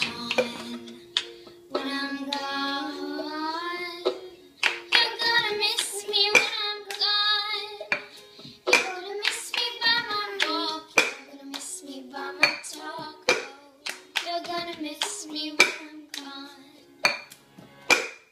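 A song with a singing voice, with sharp, irregular taps scattered through it.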